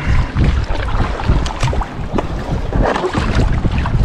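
Wind rumbling unevenly on the microphone, with irregular splashes of water around a kayak at sea.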